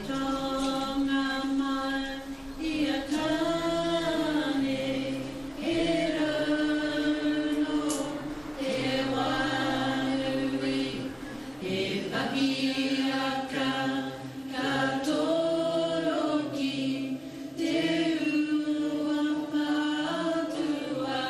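Chanted singing: a voice holds long, steady notes in phrases a few seconds long, with a lower voice underneath in places.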